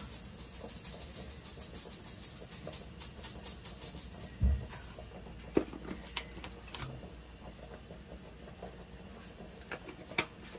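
Melted butter sizzling and crackling in a saucepan on a gas stove, with crushed red pepper just added. The crackles are thickest in the first few seconds. A dull thump comes about four and a half seconds in and a light knock about a second later.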